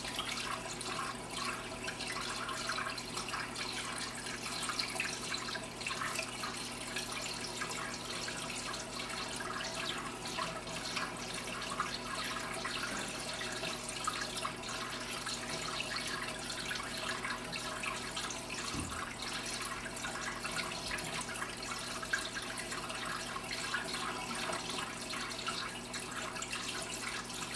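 Steady trickling and splashing of water circulating through a home-built overflow aquarium, with a low steady hum underneath.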